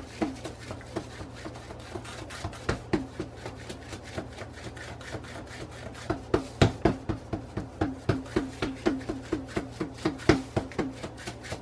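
A hand patting and pressing corn masa dough flat on a plastic sheet, stretching it into a thin tortilla: a run of soft slaps, sparse at first, then about three a second and louder through the second half.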